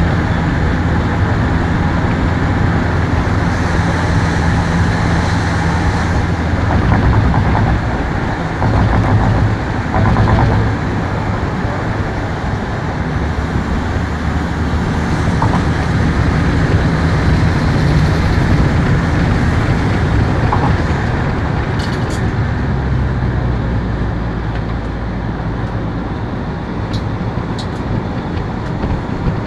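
Steady traffic noise: a continuous rushing hiss with the low hum of vehicle engines rising and fading.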